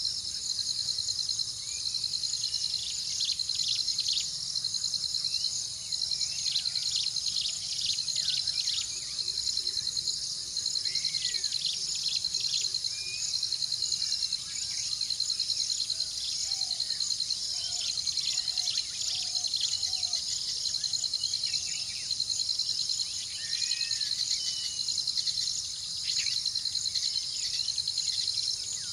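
A steady chorus of insects, a high, fast-pulsing trill, with short bird chirps and whistles scattered over it.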